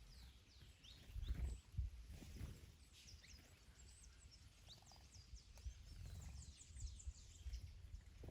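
Small songbirds chirping faintly, many quick falling notes in rapid runs, busiest in the middle. Wind gusting on the microphone as a low rumble, strongest about a second in.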